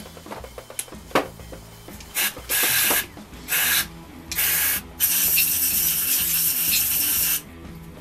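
Aerosol can of injector and carb cleaner spraying into a motorcycle carburettor bank: four short hissing bursts, then one longer spray of about two and a half seconds, with a few light clicks before.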